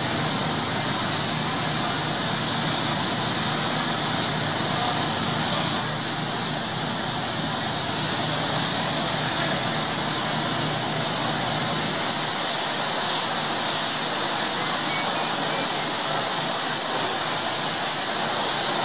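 Steady rushing noise of fire apparatus at work: fire truck engines running their pumps while a stream of water sprays from an aerial ladder onto the burned house.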